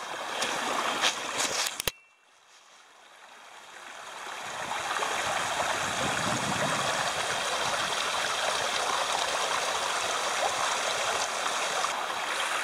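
A fast-moving shallow creek running over rocks: a steady rush of water that fades in after a sudden break about two seconds in. Before the break, a couple of seconds of footsteps rustling in dry leaf litter.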